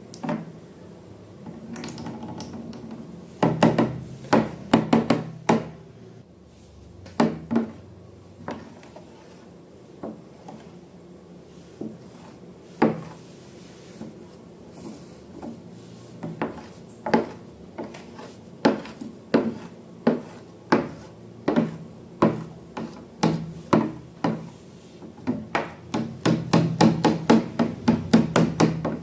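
A string of sharp clicks and taps at irregular intervals, coming in a fast run near the end, over a low hum.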